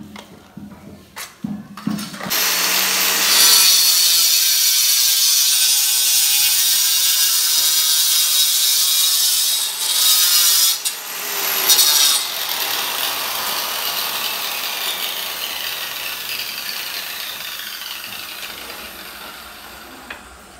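A few knocks, then a handheld electric marble cutter starts about two seconds in and cuts through a marble inlay border strip with a loud high whine, dipping briefly near the middle. In the second half the whine slowly sinks in pitch and level as the motor runs down.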